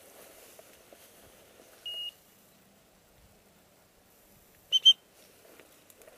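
Short high-pitched signal tones: one brief steady tone about two seconds in, then a loud quick double pip near the end, the kind used to direct a hunting dog.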